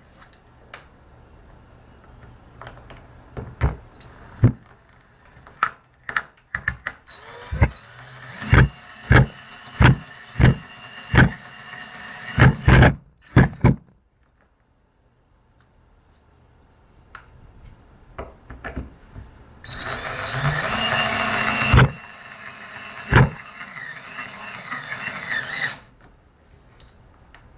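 Fastening work with tools: a run of sharp knocks and clicks, then about two seconds of loud whirring near the middle of the second half.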